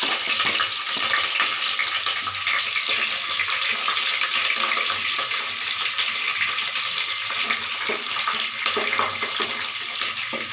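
Onion and garlic frying in hot oil in a pan with mustard seeds and chana dal, a steady crackling sizzle.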